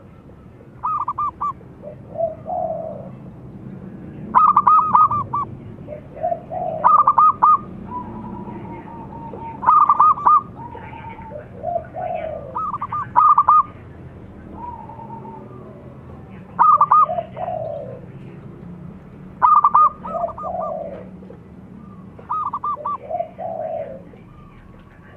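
Zebra dove (perkutut) song: a phrase repeated about every three seconds, each a quick stuttering run of high coos dropping into lower rolling coos.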